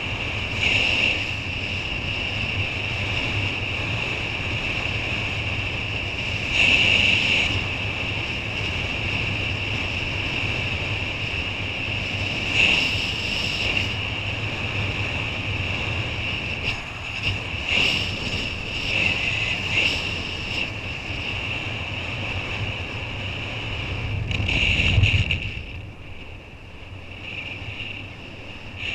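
Wind rushing over an action camera's microphone while kiteboarding on open sea, with water hissing under the board. A steady high hiss runs throughout, with louder gusts or splashes every few seconds, the loudest about 25 seconds in.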